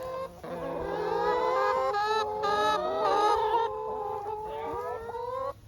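Backyard chickens calling, several drawn-out, wavering calls overlapping, which stop suddenly near the end.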